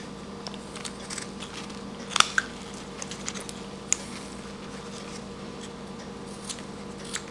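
Small hand carving blade cutting into a small wooden carving: scattered short clicks and scrapes as it takes off small chips, the sharpest two close together about two seconds in and another about four seconds in.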